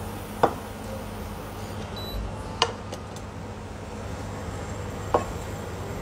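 Three sharp clinks of kitchenware being handled at a counter, glass and dishes knocking together, spaced about two seconds apart, over a steady low hum.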